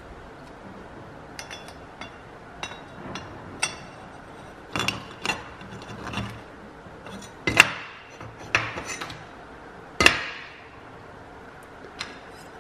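Aluminium brackets and small metal parts being picked up and set down on a steel workbench: irregular clinks and knocks with short ringing, the two loudest a little past halfway and near three-quarters through.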